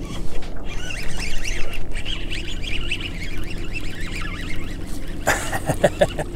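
A flock of birds calling, many short overlapping honking calls at once. About five seconds in, a louder rustling clatter of handling noise on the microphone.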